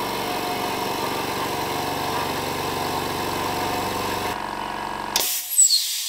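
Hyundai HY27550 oil-free low-noise air compressor running steadily, its twin electric motor-driven pumps humming as the tank fills. About five seconds in the motor stops as the pressure switch cuts out at full pressure, and a sudden hiss of released air follows and fades.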